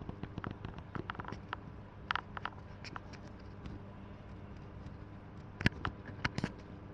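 Scattered light clicks and taps over a faint steady hum, with one sharp, loud click a little over halfway through and a few more clicks just after it.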